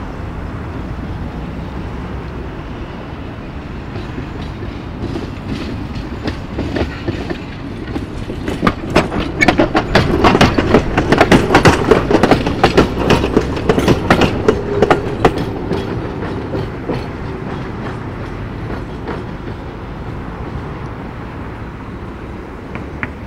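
Tatra T3-type tram approaching and passing close by, a steady rumble with a quick run of wheel clicks and clacks over rail joints and points, loudest about halfway through, then easing back to a rumble as it moves off.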